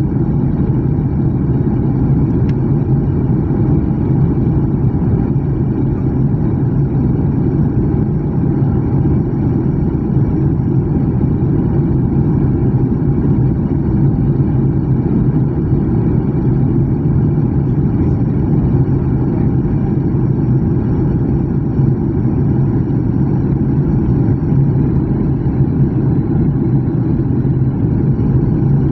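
Steady roar of an airliner's jet engines and rushing air heard inside the passenger cabin during the descent, with a constant low hum beneath it.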